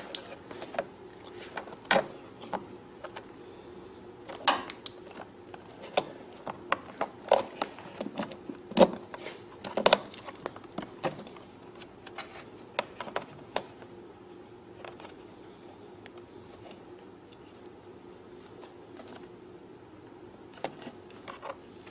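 Scattered light clicks, taps and small rattles of hands handling the clear plastic float bowl vent hose and nearby fittings inside a portable generator's frame. They come thick through the first half and thin out after that.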